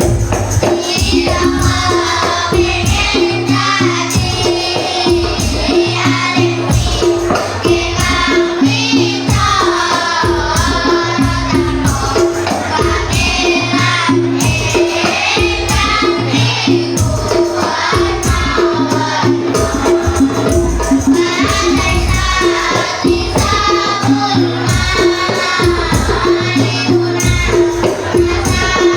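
A group of children chanting nadhom (Arabic didactic verse) in unison to a steady beat, with tambourine jingles.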